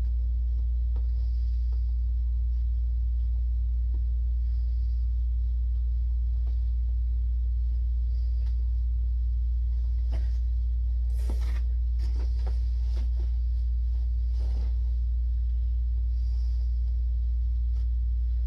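A steady low hum, with a cardboard shipping box being handled: a cluster of scrapes and rustles about ten seconds in that lasts for several seconds.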